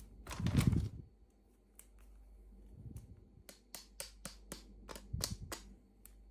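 Hands unboxing small plastic toy packaging: a short rustling knock at the start, then scattered taps and a quick run of sharp plastic clicks in the second half.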